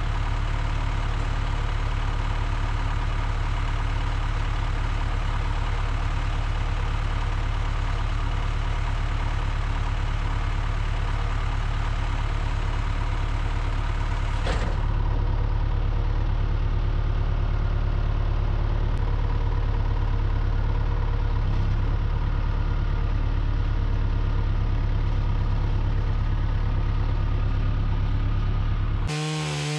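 An engine idling steadily, a loud low running drone with no revving. Near the end it gives way abruptly to a different sound.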